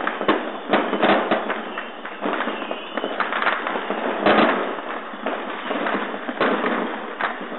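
Consumer fireworks and firecrackers going off all around the street: a dense, unbroken crackle of bangs and pops, loudest about four seconds in, with a brief whistle near the three-second mark.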